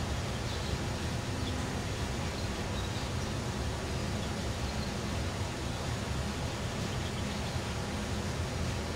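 Steady outdoor background noise: a constant low rumble under an even hiss, with a few faint high chirps.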